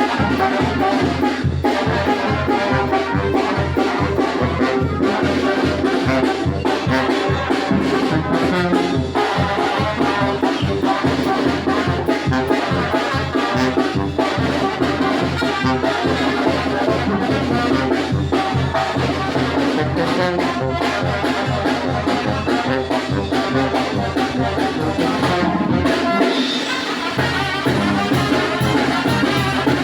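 Mixtec wind band (banda de viento) playing a chilena: brass melody over a steady low bass-and-drum beat of about two to three pulses a second. Near the end the bass drops out for about a second, then comes back.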